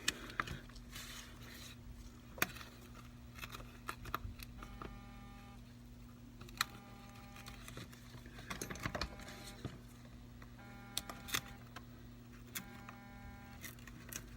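Faint, scattered clicks and ticks of a spudger prying and twisting under an iPad Pro's glass screen to free it from its adhesive. Beneath them runs a steady low hum, and a faint tone recurs for about a second roughly every two seconds.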